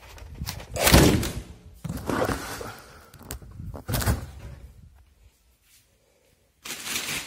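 A cardboard carton and styrofoam packing handled, with three heavy thunks, the loudest about a second in, and rustling between them.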